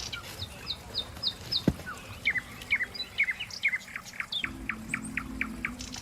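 A small bird chirping, a quick series of short downward-sliding chirps, with a low steady hum joining about four and a half seconds in.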